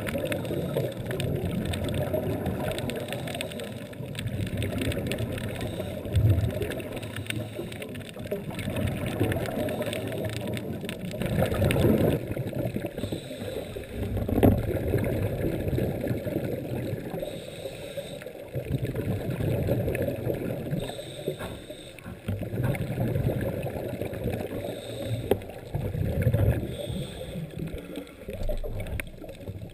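Muffled underwater noise heard through a sealed GoPro dive housing: a low, dull rumble that swells irregularly, with gurgling surges from scuba regulator exhalation bubbles.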